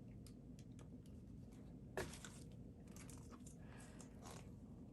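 Faint handling sounds of a computer keyboard and its packaging: one sharp knock about two seconds in, then a few light ticks and soft rustling.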